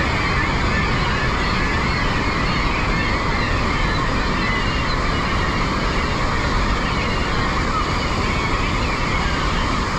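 A large flock of gulls calls continuously, with many overlapping short cries, over the steady rush of the whitewater below Niagara Falls.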